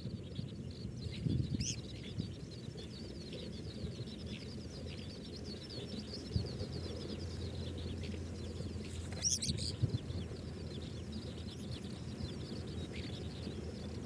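Outdoor grassland ambience: a steady run of quick, high chirps over a low background rumble, with a brief sharp rustle about nine seconds in.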